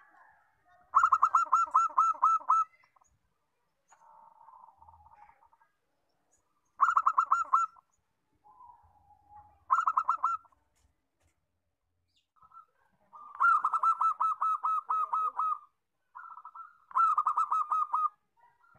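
Zebra dove (perkutut) singing: five bouts of its song, each a quick staccato run of ringing coos, about five notes a second, with softer, quieter notes between the bouts. The longest bout comes about two-thirds of the way through.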